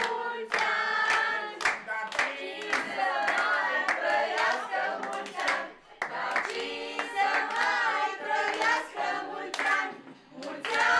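A small group of people singing a birthday song together while clapping their hands in time.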